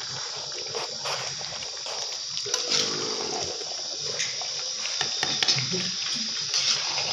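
Chicken kosha frying in a pan, a steady sizzling hiss with scattered small crackles as its liquid cooks off.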